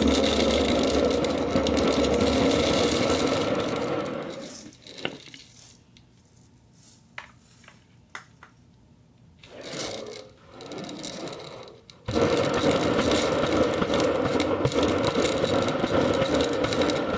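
Ceramic balls rattling and clattering against each other in a dense, continuous stream for about four seconds, then a lull with a few single clicks, before the rattling starts again abruptly about twelve seconds in and keeps going.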